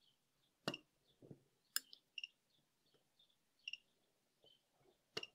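A handful of faint, sharp clicks and snaps, spread out, from a spot welder's probes pressed onto nickel strip on an 18650 cell as it is welded.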